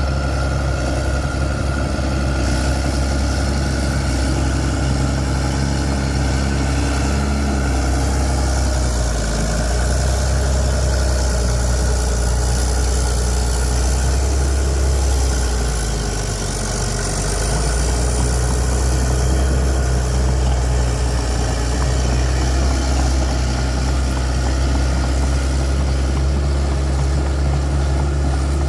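Bulldozer's diesel engine running steadily, with brief dips in level about a third of the way in and again a little past the middle.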